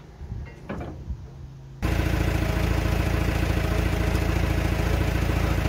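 A few light knocks and clatter, then about two seconds in a forklift's engine comes in abruptly and runs at a steady, loud idle.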